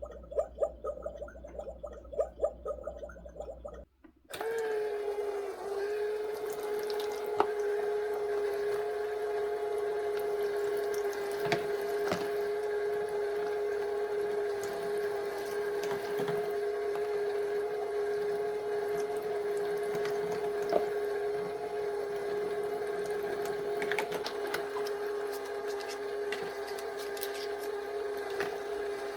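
Toy kitchen sink's small electric water pump switching on about four seconds in and running with a steady hum, water trickling over scattered small clicks.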